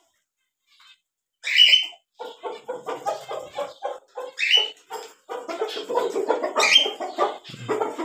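Aseel hen clucking in a steady run of short clucks, about four a second, starting a second or so in, with three loud short high calls over it.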